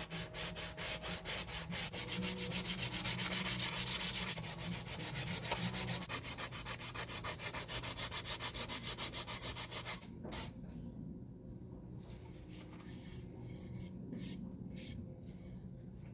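Quick back-and-forth hand-sanding strokes on the hatchet, about four a second, that stop about ten seconds in; a few faint clicks and knocks follow.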